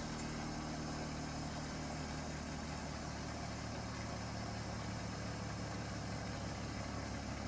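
Electric bench grinder motor running steadily with a low hum, its wheel spinning free without an axe edge against it.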